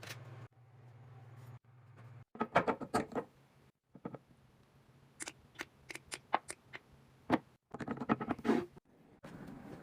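Plastic containers, lids and packaging being handled and set down while restocking a refrigerator: a run of sharp clicks and taps with bits of rustling, in short clusters. A low steady hum runs under the first two seconds.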